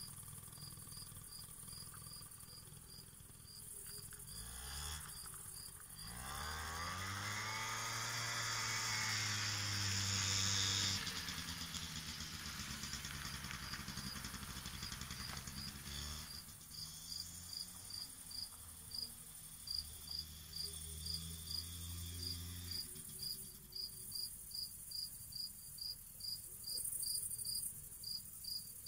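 Crickets chirping steadily in a regular high-pitched rhythm. A 50cc scooter engine revs up about six seconds in, rising and falling in pitch and cutting off suddenly near eleven seconds, then runs again more quietly for a few seconds past the middle.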